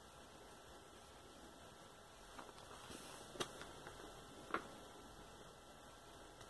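Near silence with a faint steady hum, broken by a few soft ticks as the glossy pages of a picture book are handled; the two clearest come about three and a half and four and a half seconds in.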